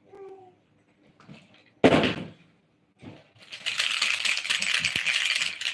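A sharp knock about two seconds in, then from about three and a half seconds a steady rattling clatter of small hard objects being handled.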